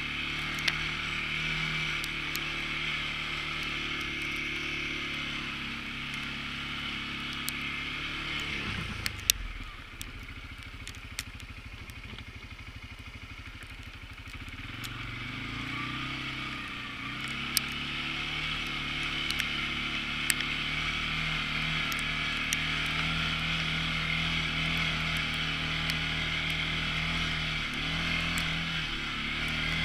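CFMoto CForce ATV engine running under way. It eases off to a lower, quieter note about nine seconds in, picks back up around fifteen seconds, and then holds steady. Scattered sharp clicks and knocks come through over the engine.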